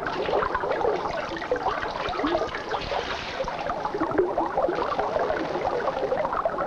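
Water sloshing and splashing as laundry is washed and wrung out by hand in a tub.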